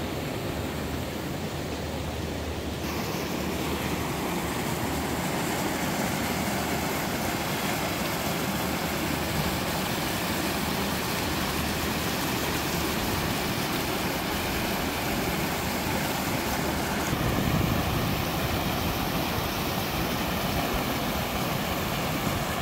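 Alpine mountain stream and waterfall rushing steadily. The sound changes abruptly about three seconds in, getting brighter, and again shortly after seventeen seconds.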